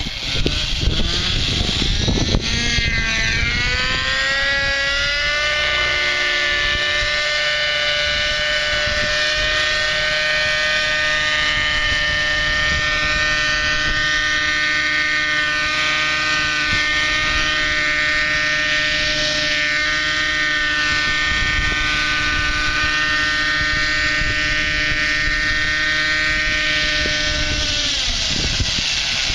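Thunder Tiger 30-size nitro RC helicopter's two-stroke glow engine and rotor, rising in pitch over the first few seconds as it throttles up to lift off, holding a steady pitch through the hover, then dropping in pitch near the end as it settles back onto the ground.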